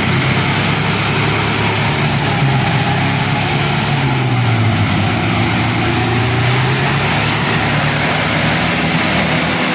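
A vehicle's engine running under heavy throttle, its pitch sagging and rising again as it strains to drive the stuck vehicle free.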